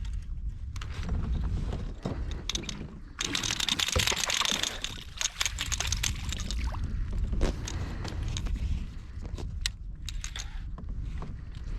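Wind buffeting the microphone with a steady low rumble. A burst of splashing water comes about three seconds in and lasts a couple of seconds, with scattered sharp clicks throughout.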